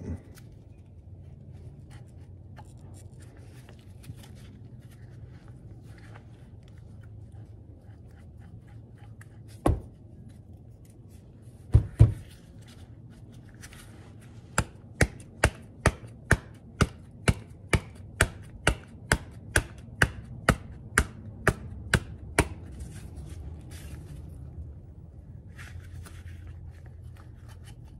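Kingpin being tapped out the bottom of a VW beam-axle spindle. There are two louder knocks about ten and twelve seconds in, then a steady run of sharp metal taps, about two a second for some eight seconds, with quiet handling of the part around them.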